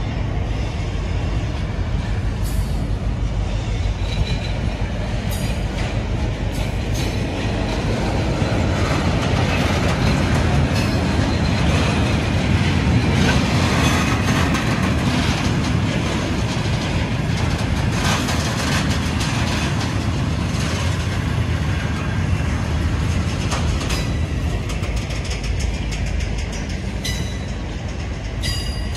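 Freight train of bogie tank wagons rolling past over a level crossing: a steady, loud rumble of wheels on rail with rapid repeated clicks as the wheels cross the rail joints.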